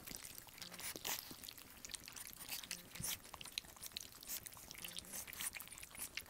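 Bullmastiff puppies lapping and smacking at wet puppy mush in a shared pan: a quiet, irregular run of small wet clicks and slurps.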